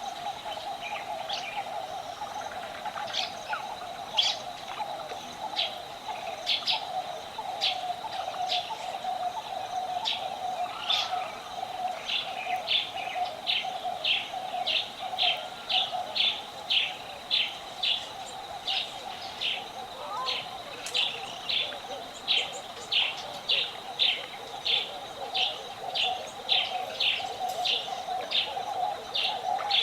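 Nature ambience from a sound effects library: a bird repeats a short chirp, irregular at first and then settling into about two calls a second, over a continuous chorus of buzzing or trilling animals.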